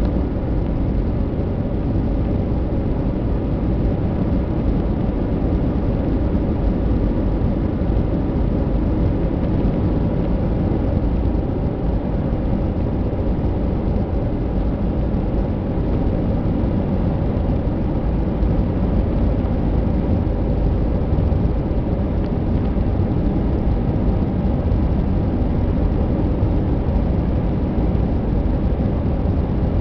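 Steady cabin noise of a jet airliner in flight, heard from a window seat beside the wing-mounted turbofan engine: a constant low rushing of engine and airflow with a faint steady hum.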